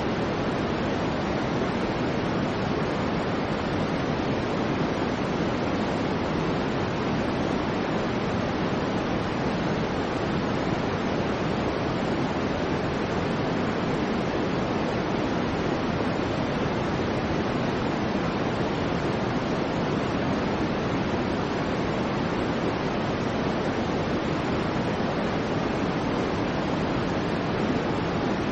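Steady, soft white noise, heavier in the low and middle range and without high hiss, holding an even level with no swells or breaks.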